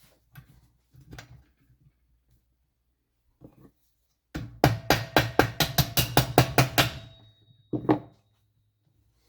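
A quick run of about a dozen sharp metal knocks, about five a second, with a ringing tone, followed by one more knock about a second later.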